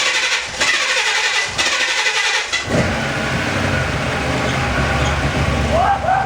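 Rebuilt 350 V8 of a 1978 Camaro Z28 being cranked for its first start after the rebuild, catching about two and a half seconds in and then running steadily. Two short rising-and-falling tones sound near the end.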